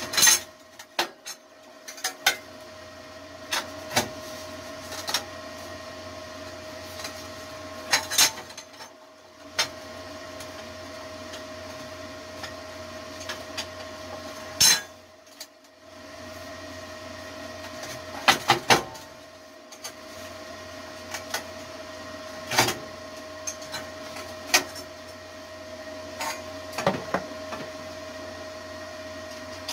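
Steady electrical hum from a stick welder in a small shop, with irregular sharp metallic knocks and clinks as 1/8-inch steel plates are handled and tapped into place.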